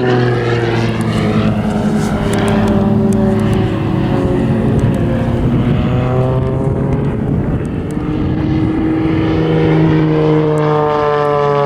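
Extra 300 NG aerobatic aircraft's propeller engine running at display power, its pitch gliding down just after the start and sliding again near the end as the aircraft manoeuvres.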